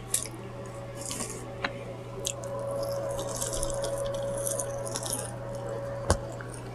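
Close-miked chewing and wet mouth smacking on fried chicken, crackly and sticky, busiest in the middle, over a faint steady hum. A single dull knock about six seconds in.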